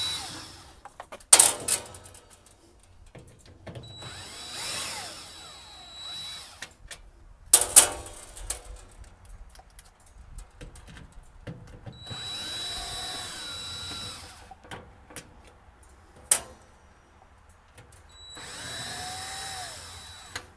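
Cordless drill-driver backing screws out of a stainless steel oven panel in three short runs of about two seconds each. Sharp metallic clicks and knocks come between the runs.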